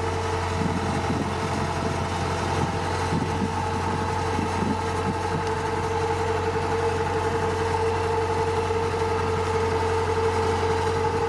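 Kubota DC-105X combine harvester's diesel engine running steadily as the tracked machine crawls, a steady whine held over the low engine drone.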